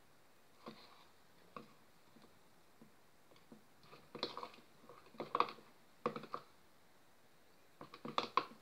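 Metal spoon stirring a wet glue-and-soap slime mixture in a bowl: scattered soft clicks and scrapes, a few at first, then short clusters every second or so in the second half.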